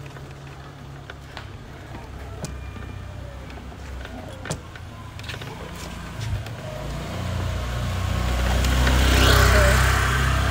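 Motor scooter being ridden: a low rumble that grows louder from about seven seconds in and is loudest near the end.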